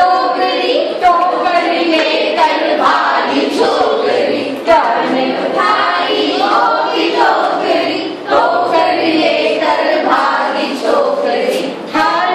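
A group of women singing a Hindi matra song together in unison, without instruments.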